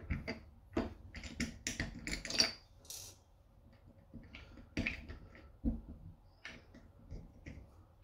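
Scattered sharp clicks and small knocks of a hand turning and working the head of a chrome kitchen tap, fitted with a new ceramic cartridge and topped with a blue indicator cap, with a quieter gap a little past the middle.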